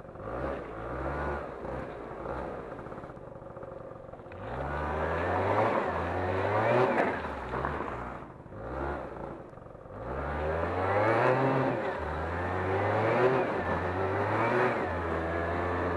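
Junak 806 scooter's small engine revving up again and again as the throttle is opened and shut. There are a couple of brief quieter lulls where it drops back between runs.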